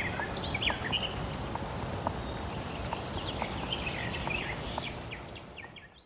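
Forest songbirds chirping and singing in short, quick phrases over a steady background hush, with light clicks about twice a second; it all fades out at the end.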